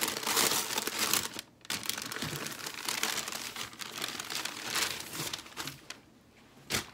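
Packaging being crinkled and rustled by hand as a folded clothing bundle is unwrapped, with a short break about a second and a half in. It dies down near the end, and a single sharp click comes just before it ends.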